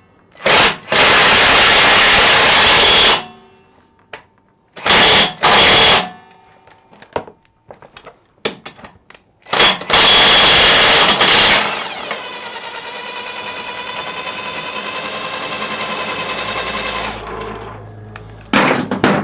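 Impact wrench hammering in three bursts of about two seconds each, driving the nut of a threaded-rod press tool that draws steering head bearing cups straight into the frame. After the third burst it gives a steady whine for about five seconds, then stops.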